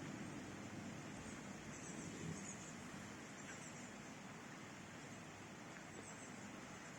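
The last of a thunder rumble dying away at the start, then a faint steady hiss of rain, with a few faint high chirps now and then.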